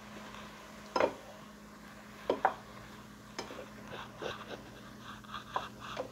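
A spatula stirring steamed broccoli florets in a square copper-coloured pan, knocking and scraping against the pan: a sharp knock about a second in, two more close together a little after two seconds, another shortly after three seconds, then lighter taps.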